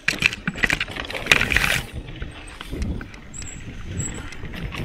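Mountain bike ridden along a rough dirt singletrack. For the first two seconds tall grass and stems swish and brush against the handlebars and rider. After that comes the quieter rumble of the tyres and small rattles of the bike over the ground.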